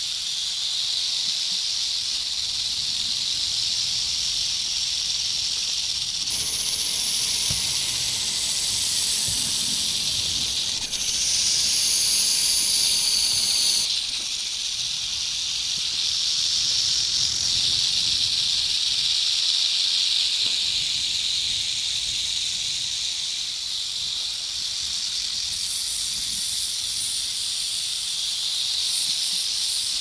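Snakes hissing continuously in long overlapping hisses. A higher, sharper hiss joins about a fifth of the way in and again near the end, and the hissing is loudest a little before the middle.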